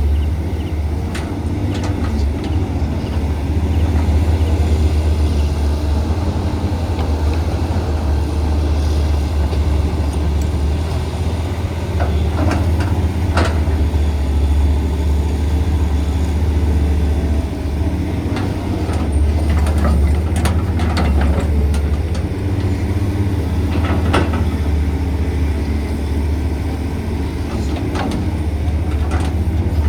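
CAT 320CL hydraulic excavator's diesel engine running with a steady low drone that swells and eases as it works, with occasional sharp knocks over it.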